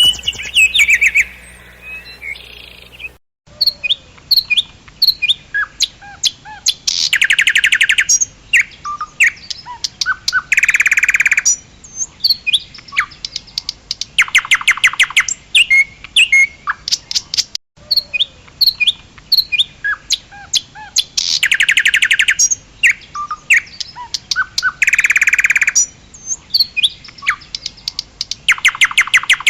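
Nightingale singing: loud runs of rapidly repeated notes, each about a second long, alternate with short whistles and chirps. The song breaks off for a moment about three seconds in and again near the middle.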